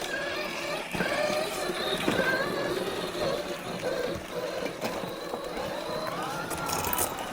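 FMS FJ40 RC crawler's brushless motor and drivetrain whining, the pitch gliding up and down with the throttle, with a few knocks as the truck climbs over terrain.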